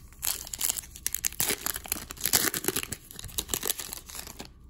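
Plastic trading-card pack wrapper being torn open and crinkled by hand, a dense run of crackling that stops about four seconds in.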